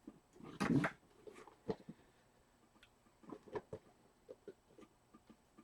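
Handling noise from Funko Pop boxes being moved and taken out of a shipping box: a brief cardboard scuff about a second in, then scattered light knocks and clicks.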